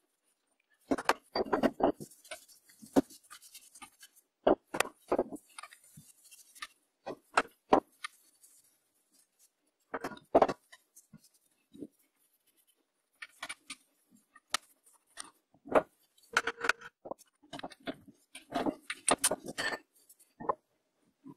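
Metal tools and lathe spindle parts clinking and knocking against each other in irregular, separate strikes during disassembly.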